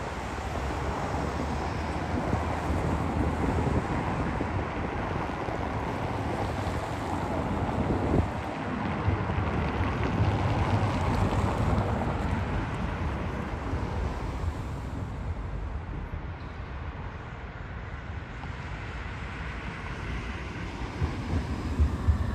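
Wind buffeting the microphone over a low rumble of vehicles, swelling in the middle and easing off, then starting to build again near the end.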